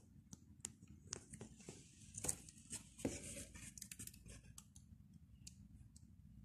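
Faint handling sounds: scattered sharp clicks and snips with short rustles, the loudest bunched around two to three seconds in.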